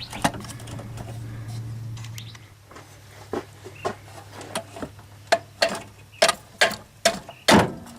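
A hammer handle tapping repeatedly on a blower motor to knock its squirrel-cage fan loose from the shaft. About a dozen sharp taps come at roughly three a second, starting a few seconds in, and the last ones are loudest.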